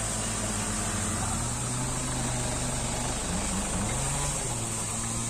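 Pickup truck engine running at low speed as the truck pulls up and stops, a steady low hum whose pitch wavers briefly a little past halfway.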